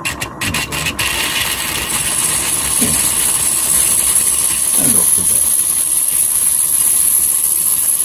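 Live-steam Regner Paul tram loco hissing as steam is let through to it. The hiss comes up about a second in and holds steady, after a few sharp clicks at the start.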